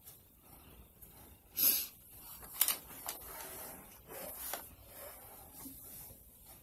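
Short rubbing and scraping noises with a couple of sharp clicks, from makeup being handled close to the microphone while mascara is taken from its tube and brushed on.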